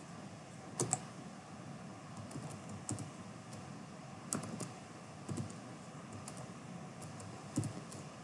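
Computer keyboard keys pressed in scattered, irregular keystrokes a second or so apart, with a faint steady hiss behind.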